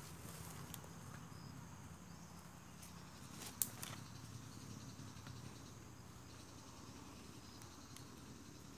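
Faint outdoor ambience with a steady low murmur and a few soft clicks, and one sharp click about three and a half seconds in.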